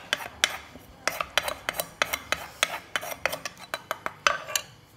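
A wooden pestle knocks in a large mortar while a metal spoon clinks and scrapes against the bowl, pounding and tossing shredded green papaya for Lao/Isan papaya salad. The knocks come irregularly, about three or four a second, and stop just before the end.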